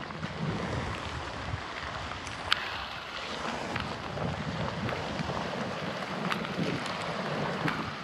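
Wind gusting over the microphone, with sea washing on a rocky shore. A few sharp ticks stand out, the loudest about two and a half seconds in.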